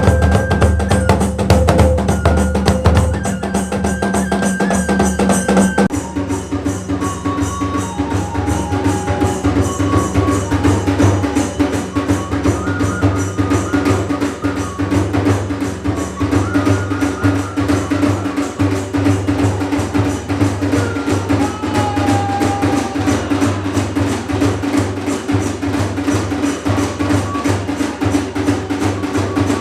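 Drum-led music, the kind that accompanies Iwami kagura: dense, rapid drumming under a high, wavering melody line. The mix changes abruptly about six seconds in.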